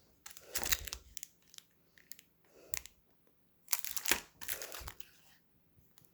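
Crunching and crinkling from a Nestlé Crunch crisped-rice chocolate bar and its wrapper, in irregular crackly bursts with sharp clicks, the loudest about half a second in and again around four seconds in.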